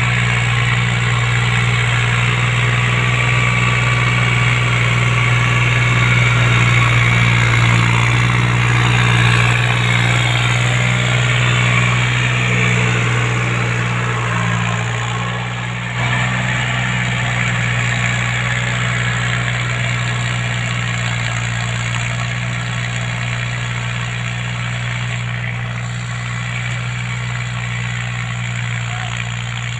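New Holland TT55 tractor's three-cylinder diesel engine running steadily under load while it drives a rotary tiller through the soil. The sound steps a little quieter about halfway through.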